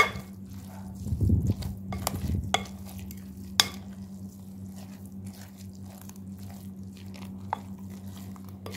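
Plastic spatula stirring a wet mixture of shredded chicken, grated vegetables and raw egg in a glass bowl. Sharp taps of the spatula against the glass come at the start and several times later, with a squelchy churning about a second in.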